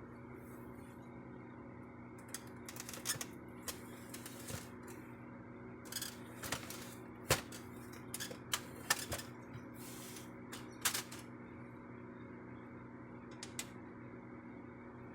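Scattered sharp plastic clicks and knocks, several in quick succession then one more near the end, from a Brother DCP-T820DW / MFC-T920DW ink-tank printer's casing and parts being handled, over a steady low hum.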